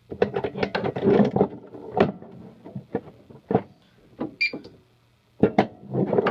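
Clicks, knocks and rattles of a Notifier NBG-12L key-reset fire alarm pull station being handled and reset, in quick runs with a pause in the middle. A brief high tone sounds about four and a half seconds in.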